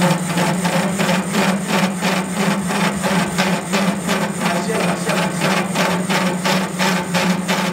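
WEISS WBL210D bench lathe turning a rusty workpiece: a steady motor hum with an even, rhythmic tick of the cutting tool on the rusty surface, about four a second.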